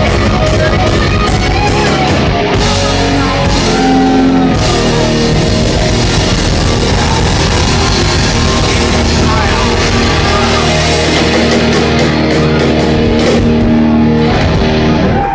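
Live rock band playing loud electric guitars and drums, the song cutting off right at the very end.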